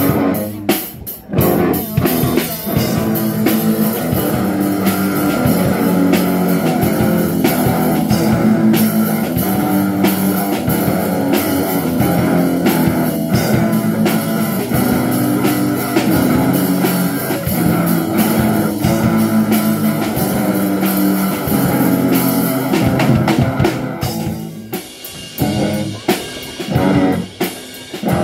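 Amateur rock band playing live: electric guitars and bass guitar through small amps over a drum kit. A few sharp drum hits open it, the full band comes in about two seconds in, and it thins out to scattered hits near the end.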